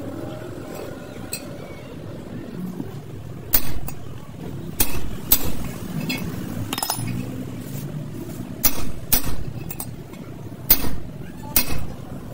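A series of about eight sharp clinks and knocks at irregular intervals, some coming in pairs, over a low steady background murmur.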